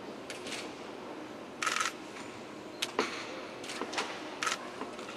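Camera shutters clicking in short scattered bursts, about seven times, the longest and loudest nearly two seconds in, over a steady hall hiss.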